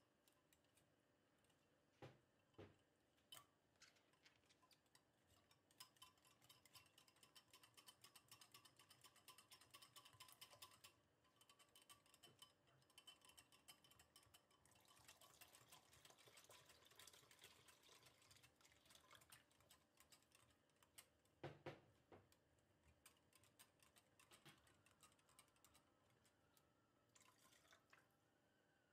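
Near silence, with faint scattered clicks of a wire whisk against a glass bowl as a flour-and-yogurt batter is whisked; a slightly louder double knock comes about 21 seconds in.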